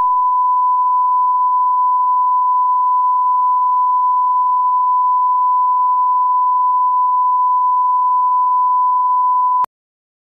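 Steady pure test tone, one unchanging high beep at a single pitch, held for almost ten seconds and then cut off abruptly with a click near the end.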